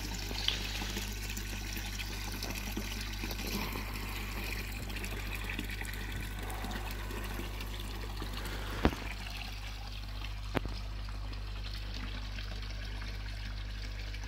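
Koi pond water trickling and splashing steadily, over a steady low hum. Three brief clicks cut in, the sharpest about nine seconds in.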